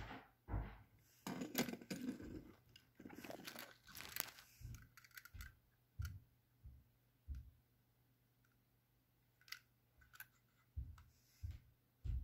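Quiet handling sounds of Märklin model railway wagons: small clicks and taps as the wagons are picked up, turned over and set down on a wooden floor, with a stretch of rustling and crinkling about one to four seconds in.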